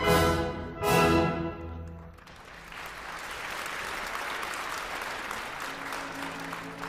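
Ballet orchestra ends a passage with two loud chords about a second apart, then a theatre audience applauds steadily; soft, held orchestral notes return near the end.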